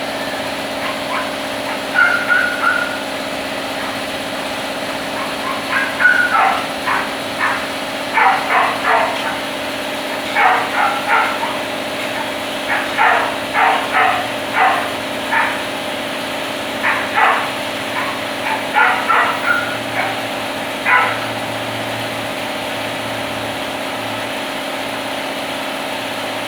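Cat coughing in repeated fits of short, sharp hacks, two to five at a time, with wheezing, over a steady background hum.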